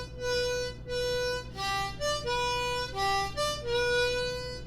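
A harmonica playing a short tune of about eight held notes, mostly on one repeated pitch with a few brief lower and higher notes between, the last note held longest.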